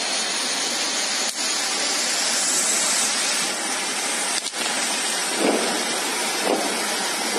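Ground fountain firework spraying sparks with a steady, loud hiss, with a couple of brief louder pops after about five seconds.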